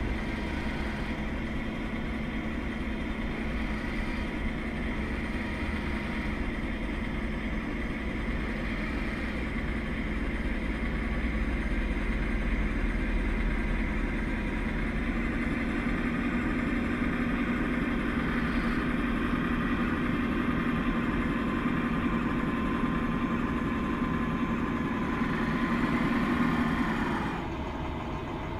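A self-built 1:8 scale RC tractor running under load as it pushes sand with its front blade: a steady machine drone with a high whine, growing louder in the second half. Near the end the level drops and the pitch falls as it eases off.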